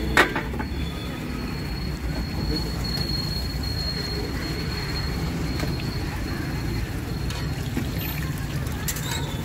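Battered bajji fritters deep-frying in a large iron kadai of hot oil: a steady sizzle. There is a sharp knock just after the start and a fainter one near the end.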